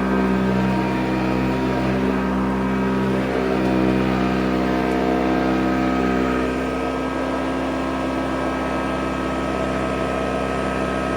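Old Sanitaire SC684 commercial upright vacuum cleaner running at a steady pitch while vacuuming carpet, its motor giving a set of steady tones over a rushing of air. The level drops slightly about six and a half seconds in.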